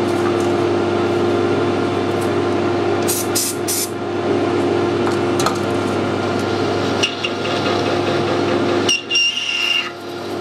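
Harrison lathe running at speed with a steady gear hum while a parting tool plunges a pulley groove into spinning aluminium, cutting cleanly now that the spindle speed has been raised to stop the tool digging in. There are brief high scraping sounds around three seconds in. Near the end the machine sound dips and a thin high tone holds for about a second.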